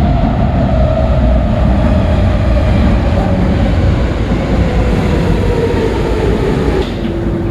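Athens Metro Line 2 electric train pulling into the station: a loud low rumble with a motor whine that falls slowly in pitch as the train slows. Near the end the whine stops and a steady tone starts as the train comes to a stop.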